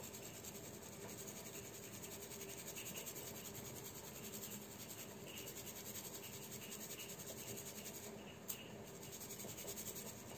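Ground herbal powder shaken through a small metal mesh sieve over a bowl: a faint, quick, even scratchy rustle. There is one small click about eight and a half seconds in.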